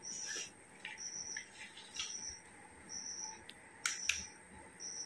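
Faint rustling and sharp clicks of small accessories being handled and taken from their packaging. Behind them a short, high chirp or beep repeats evenly about once a second.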